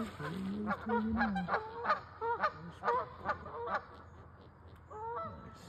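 A goose honking repeatedly, about two honks a second, fading out by about four seconds in, with one more honk near the end.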